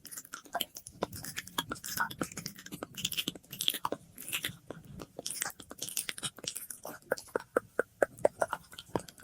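Close-miked ASMR mouth sounds: irregular wet clicks, smacks and short breathy hisses, with an echo effect added. Near the end the clicks come quicker, several a second.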